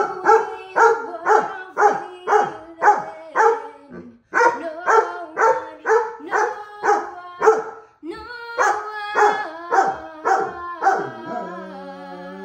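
Dog barking in a steady rhythm, about two barks a second, in three runs with short breaks. Near the end a woman sings a long held note.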